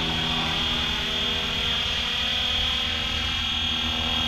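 Flywing FW450L V3 electric RC helicopter in flight: a steady high-pitched motor and rotor whine over a low hum, holding an even pitch throughout.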